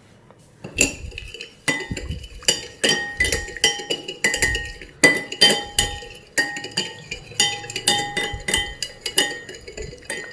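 A spoon stirring an oil-and-spice marinade in a bowl, clinking against the bowl with a ringing tone about two or three times a second. It starts about a second in.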